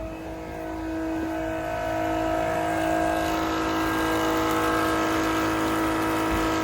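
A motor running steadily with a whine, growing louder over the first couple of seconds and then holding.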